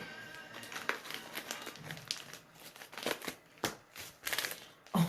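Packaging being handled and unwrapped: irregular crinkling and rustling of wrapping, with scattered sharp crackles.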